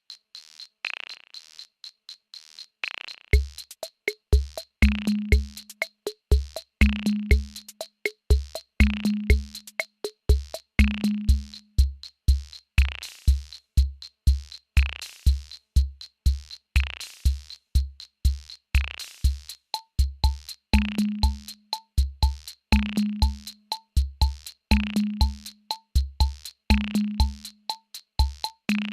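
Electronic drum-machine beat: a fast, even ticking hi-hat, joined about three seconds in by deep kick drums and a pitched low drum hit every two seconds. The low hit drops out for a while in the middle, and short higher bleeps come in about two-thirds of the way through.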